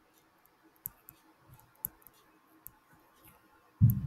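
Sparse light clicks and taps of a stylus writing by hand on a tablet screen. A single low thump comes near the end.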